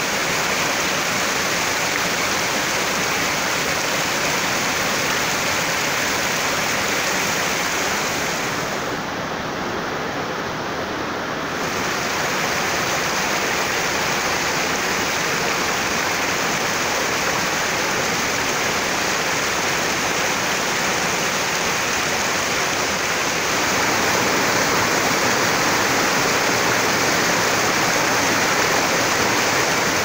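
The Yauzlar, a mountain stream, rushing down over boulders in small cascades: a steady rush of water that dips briefly about ten seconds in and grows a little louder after about twenty-three seconds.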